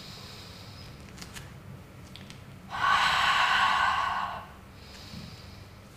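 A woman breathing out hard through the mouth, one long breathy exhale of under two seconds about midway, as she lifts her leg in a Pilates shoulder bridge. Fainter breaths come before and after it.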